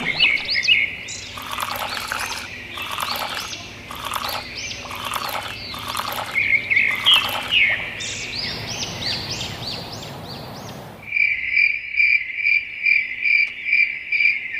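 Small birds chirping and calling, with soft swishing noises coming and going about once a second. About eleven seconds in the birds stop and crickets take over with an even, pulsing chirp, about three pulses a second: a nighttime ambience.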